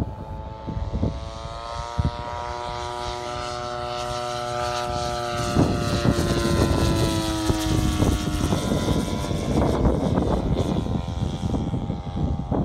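Propeller engine of a large 110-inch scale model Kawasaki Ki-100 flying past. Its droning note rises slightly in pitch, then falls away as the plane passes, growing louder all the while. Past the middle the steady note gives way to a rougher, noisier rush.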